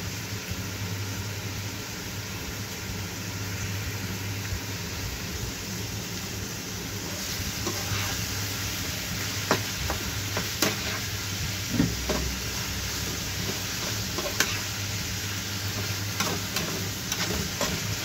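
Beef, onion and bell pepper sizzling in a frying pan while being stir-fried with a spatula. The sizzle grows louder about seven seconds in, and from then on the spatula clicks and scrapes against the pan.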